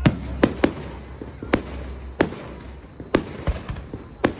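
Aerial firework shells bursting: about seven sharp bangs at irregular intervals, the first the loudest.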